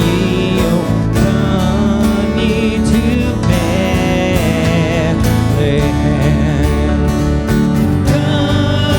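A live church worship band playing a song, with voices singing over guitar and a steady beat.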